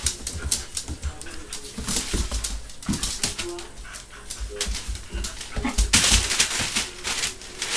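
A puppy playing and scuffling, with irregular clicks and taps and a few short whimpers; a louder rustling scuffle comes about six seconds in.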